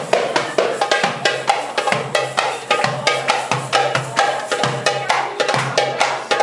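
Darbuka (Middle Eastern goblet drum) played in a fast, dense rhythm: quick sharp slaps with deep bass strokes recurring among them.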